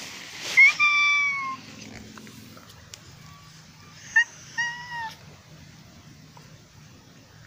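White cat meowing: one long meow about half a second in that falls slightly at the end, then two shorter meows around four seconds in.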